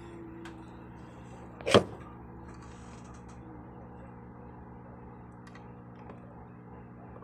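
Soldering work on an amplifier's circuit board: a steady low hum, with one sharp knock about two seconds in and a few faint ticks.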